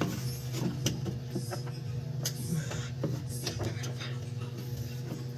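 Scattered light clicks and knocks of hands and a tool working inside a washing machine's drain to pull out stuck coins, over a steady low hum.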